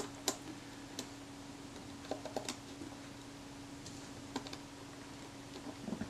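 Faint, scattered small clicks and taps of metal shutter parts being handled and fitted as the rings of a Kodak Retina IIIc shutter are reassembled, over a faint steady hum.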